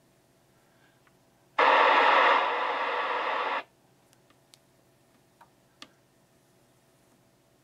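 Icom IC-R7100 receiver tuned across the 800 MHz band in FM. For about two seconds it puts out a loud burst of rushing noise that stops abruptly, as the squelch opens on a signal and closes again. A few faint clicks follow as the tuning knob is turned.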